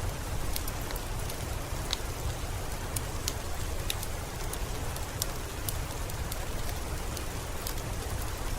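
Steady rain falling, an even hiss with a low rumble beneath it and scattered sharp ticks of single drops striking close by.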